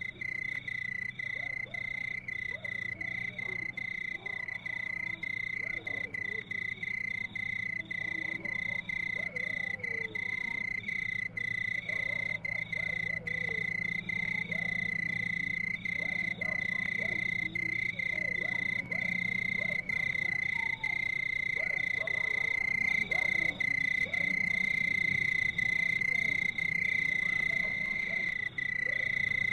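Night chorus of insects and frogs: a continuous high-pitched insect trill with frogs calling irregularly beneath it.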